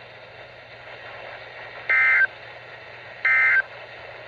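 Weather radio end-of-message data bursts: two short, buzzy two-tone digital bursts about a second and a half apart, over steady radio hiss. They are the coded signal that closes the severe thunderstorm warning broadcast.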